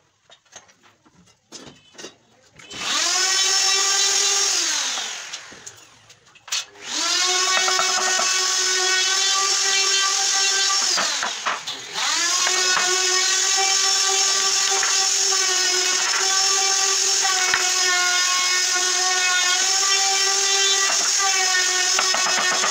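Electric hand drill running with a steady whine: it spins up about three seconds in, winds down two seconds later, starts again and runs on steadily with a brief dip partway. A few light knocks on wood come before it first starts.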